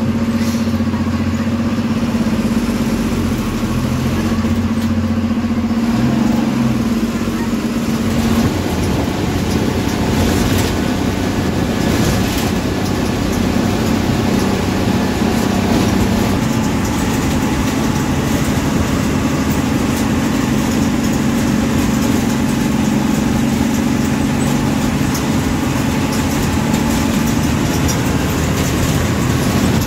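MSRTC bus's diesel engine running, heard from inside the driver's cab: a steady engine hum that turns rougher about eight seconds in.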